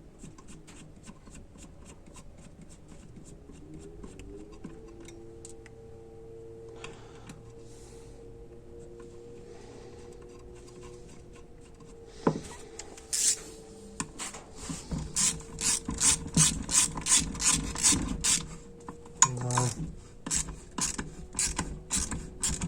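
Hand ratchet clicking: faint scattered clicks at first, then from about halfway through a loud, fast run of ratcheting clicks, several a second.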